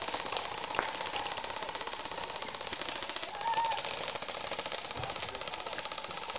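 Airsoft guns firing on full auto: a fast, even rattle of many shots a second, kept up without a break. Faint shouting voices sound over it.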